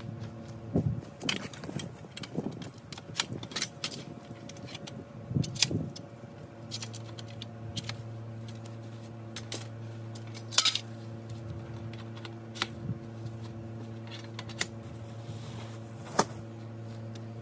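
Metal frame tubes of an A-frame hunting blind clinking and knocking as they are handled and fitted together, in scattered sharp clicks over a steady low hum.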